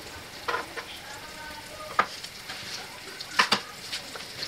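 Butter melting and sizzling in a hot frying pan: a steady hiss, with three short sharp clicks about half a second, two seconds and three and a half seconds in.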